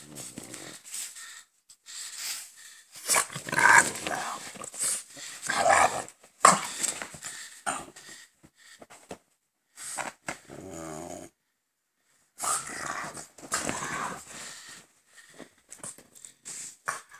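Two French bulldogs, an adult and a puppy, play-fighting and growling in irregular bursts with short pauses between them.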